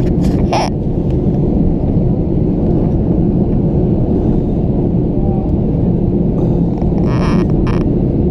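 Steady cabin rumble of a Boeing 737-800 in flight on approach: its CFM56 turbofan engines and the airflow over the fuselage, heard from inside the cabin. A few brief hissing sounds come through near the end.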